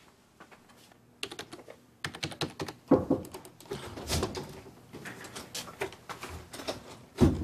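Typing on a computer keyboard: quick runs of keystrokes, starting about a second in and growing dense. Two heavier thumps stand out, one about three seconds in and one near the end.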